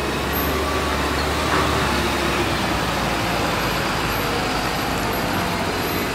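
Heavy diesel truck engine running steadily, mixed with road traffic noise, with a low rumble that eases off about halfway through.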